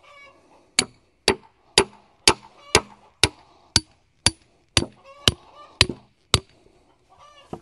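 Hammer striking a wooden stake: twelve sharp blows at a steady pace of about two a second, driving the stake down beside a board. Poultry call briefly at the start and again near the end.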